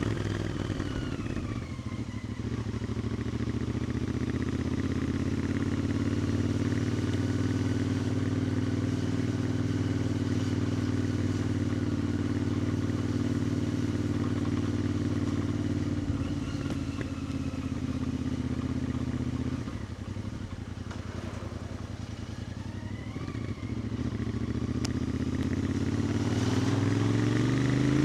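2021 Royal Enfield Interceptor 650's parallel-twin engine and exhaust under way: the revs fall in the first couple of seconds, then hold a steady cruise. A little after the middle the throttle eases off and it goes quieter for a few seconds, then it revs up again with rising pitch near the end.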